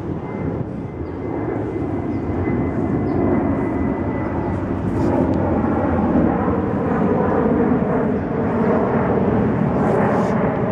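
A steady engine drone carrying several held tones. It grows louder over the first five seconds or so, then holds.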